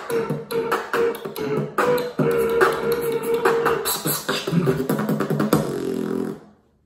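Human beatboxing: rapid percussive mouth sounds woven with held hummed notes, cutting off abruptly shortly before the end.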